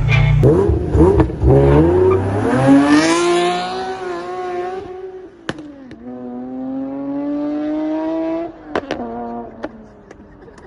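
Car engine accelerating, its pitch climbing steadily. About five seconds in the pitch drops, as at a gear change, then it climbs again until it cuts off sharply near the end, followed by a few clicks.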